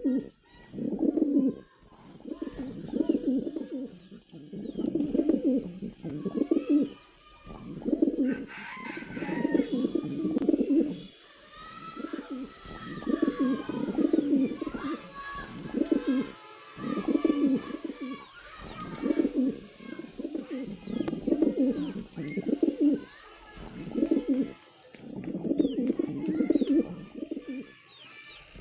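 Pigeons cooing over and over, low throaty coos about every one and a half to two seconds. Higher, thin chirps from smaller birds join in through the middle.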